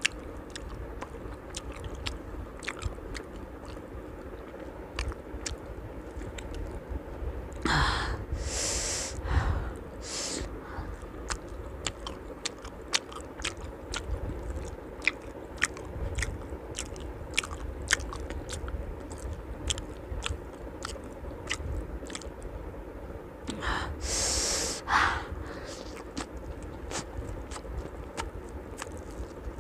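Close-miked chewing of a puri-and-curry meal: a steady run of small, sharp, wet mouth clicks. There are a few louder, breathy hisses about a third of the way in and again later.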